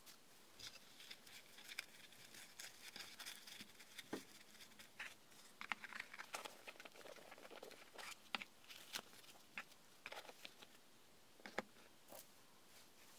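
Faint handling sounds from small cardboard gift boxes and foam packing sheets: scattered light taps and clicks as lids are fitted and boxes set down on a table, with soft rustling in between.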